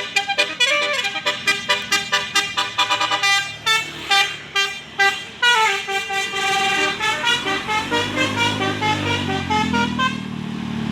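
Indonesian bus 'telolet' horn, a multi-tone musical air horn, playing a fast string of short melodic notes. Midway the tones slide in pitch, and a low bus engine rumble grows near the end.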